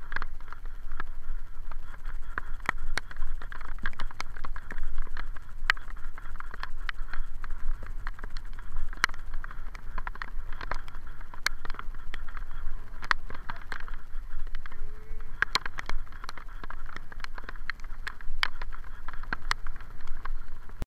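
Noise of a bicycle ride on a wet road in the rain, picked up by the rider's camera: a steady low rumble with many irregular sharp taps and clicks.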